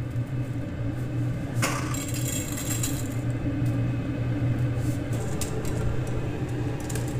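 A bundle of dry spaghetti being handled, its strands clicking and rattling against each other, with a crackly burst about two seconds in, over a steady low hum.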